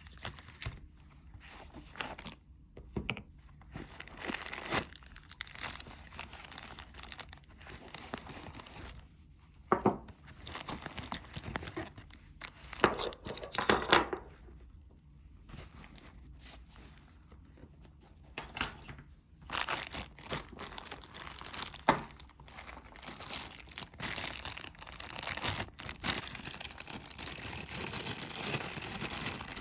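Crinkling and rustling of small cycling gear and its bags being handled, with short rips and a few sharp clicks and knocks at irregular moments.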